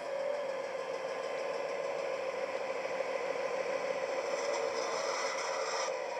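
OO-gauge model of an Irish A Class diesel locomotive playing its DCC sound-decoder diesel engine sound through the model's small speaker: a steady engine drone as it pulls its coaches slowly. A hiss joins in over the last couple of seconds as the train slows to a stop.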